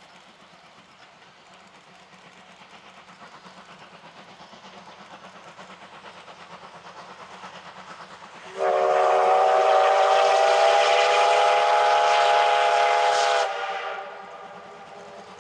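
Steam locomotive C57 1 working hard as it pulls away, its exhaust chuffing in a steady rhythm and getting louder as it approaches. About eight and a half seconds in, it sounds one long steam-whistle blast of about five seconds, several notes at once, which cuts off sharply and leaves the chuffing.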